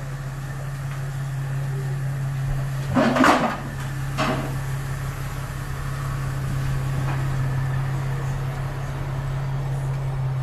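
Mercedes ML350's V6 engine idling through a custom stainless steel cat-back exhaust, a steady low drone. About three seconds in there is a short loud burst, and a smaller one about a second later.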